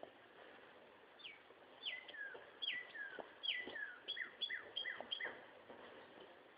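A songbird singing a series of quick, clear whistled notes, each sliding downward in pitch. The first notes are drawn out in two falling steps; the last few, near the five-second mark, are shorter and come faster.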